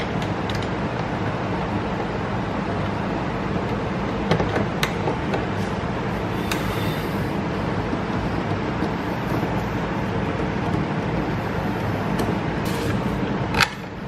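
A steady low hum runs throughout, with a few light clicks of a screwdriver working the T20 Torx screws out of a car door's armrest trim, and one sharper, louder click just before the end.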